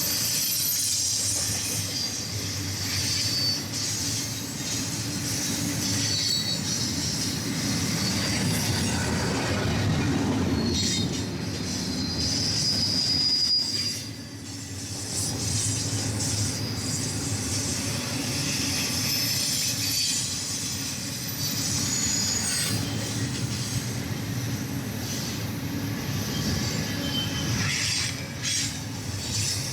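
BNSF intermodal freight train rolling past, its steel wheels squealing in high thin tones over a steady rumble of cars on the rails.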